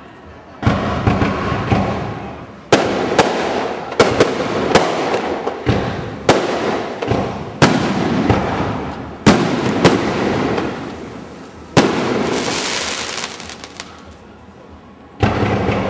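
Fireworks display: a string of loud firework bursts, one every one to two seconds, each a sharp bang that dies away, with a hissing crackle between the bangs about three-quarters of the way through.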